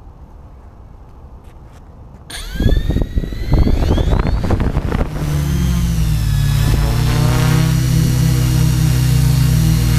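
Tarot 690S hexacopter's six electric motors and propellers spinning up about two seconds in, with rising whines, then running at a steady, loud hum and buzz as the craft lifts off and flies.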